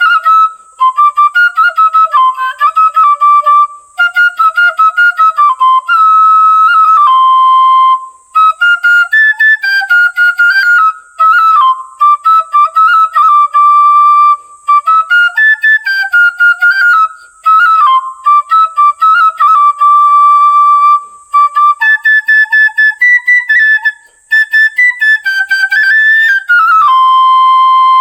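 Bansuri (bamboo flute) playing a solo melody, the notes sliding and ornamented, with brief pauses for breath every few seconds.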